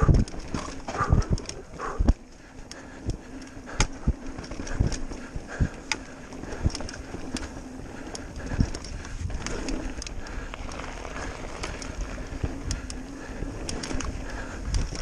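Mountain bike running fast down a dirt singletrack: tyres on the dirt with frequent knocks, clicks and rattles from the bike over roots and bumps.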